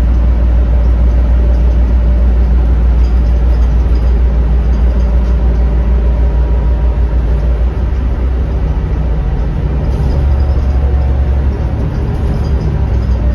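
Caterpillar diesel engine of a Denning Phoenix low-floor bus, heard from inside the passenger cabin, running with a deep steady hum as the bus drives. Its note drops about eight seconds in, rises again, then drops once more near the end.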